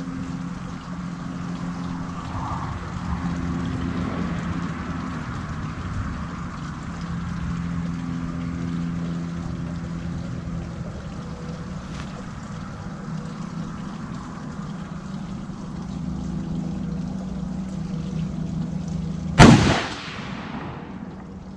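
A single rifle shot about nineteen seconds in: one sharp crack with a trailing echo that dies away within about a second. Before it, only a steady low background hum.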